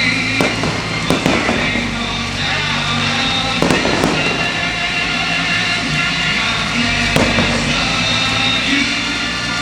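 Fireworks shells bursting in irregular sharp bangs over loud music played for the show.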